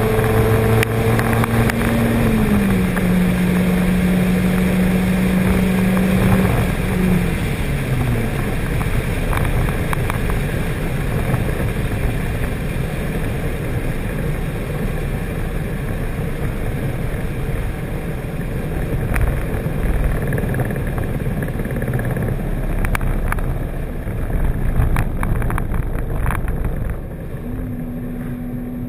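Honda Prelude's swapped H22A four-cylinder VTEC engine heard from inside the cabin, held at high revs at over 100 mph, stepping down slightly after a couple of seconds, then falling away about seven seconds in. The rest is wind and road noise that slowly quietens as the car coasts down, with a few sharp knocks and a steady hum coming in near the end.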